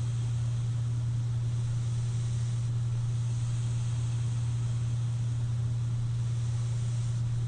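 CPAP machine running steadily: a constant low hum with an even hiss of air over it. The hiss swells slightly near the end.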